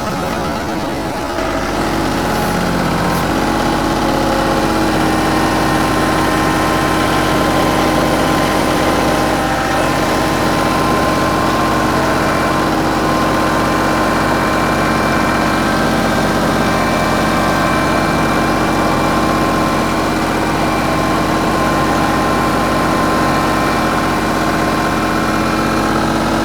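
TYM 2515H compact tractor's 25 hp diesel engine running steadily, a little louder from about two seconds in.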